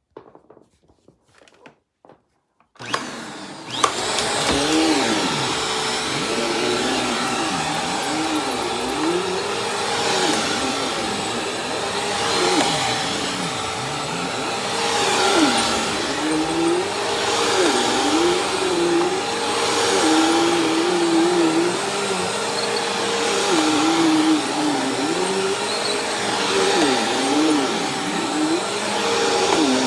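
Bissell CleanView 2254 vacuum cleaner switched on about three seconds in, then running steadily on thick carpet, its motor pitch dipping and recovering again and again.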